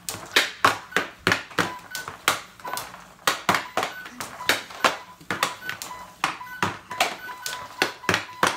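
Hockey stick blade and puck clacking on a plastic SuperDeker stickhandling board, about three to four sharp taps a second in an uneven rhythm as the puck is dribbled quickly side to side.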